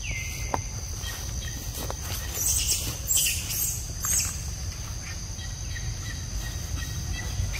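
Forest ambience: a steady high-pitched insect drone over a low rumble. Leaves and twigs rustle in bursts between about two and four seconds in, and a brief high call sounds at the start.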